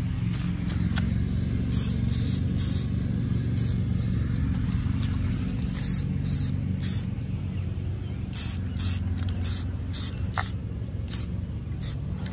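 Aerosol spray-paint can sprayed onto steel brackets in many short hissing bursts, over a steady low rumble.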